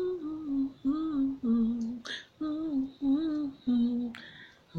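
A woman humming a slow tune without words, a string of about seven short held notes with brief breaks between them.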